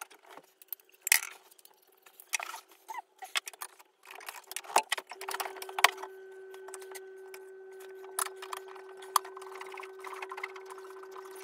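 Irregular clicks, knocks and light clinks of pipe clips and pipework being handled and fitted to wooden battens inside a stud-wall frame. A faint steady hum comes in about halfway through.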